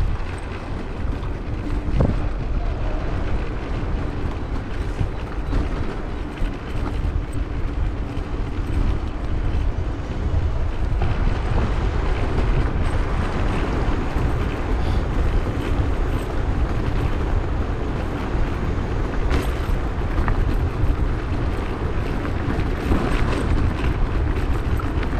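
Wind rushing over the microphone with road rumble from a Zero 10X electric scooter being ridden along a road. A faint steady hum runs through roughly the first half, and a single sharp click comes about two seconds in.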